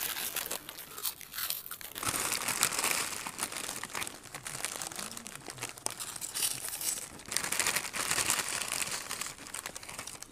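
Crinkly plastic chip packets rustling and crumpling as hands dig into them, with crunching of crisps being bitten and chewed.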